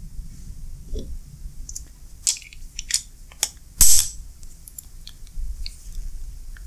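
Irregular metallic clicks and taps from a vintage Snap-on F-71-D 3/8" drive ratchet being turned and handled by hand. About four seconds in comes one loud, sharp click as a socket is pushed onto the square drive and caught by its ball detent.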